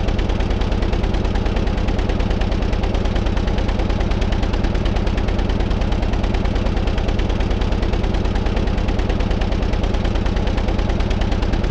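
Car engine running steadily, a fast even beat of firing pulses that holds the same speed throughout.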